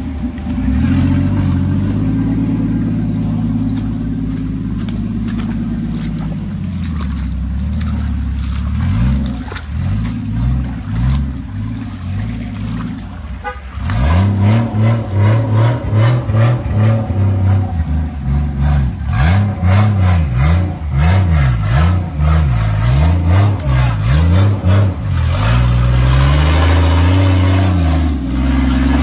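Toyota Hilux's swapped-in 2JZ inline-six engine pulling at low revs under load. From about halfway through, its revs rise and fall over and over, about once a second, as the throttle is worked. Near the end it settles to a steadier pull.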